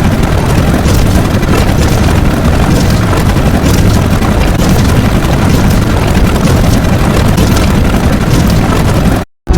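Loud, dense, steady rumbling noise sound effect with no clear pitch, cutting off suddenly near the end.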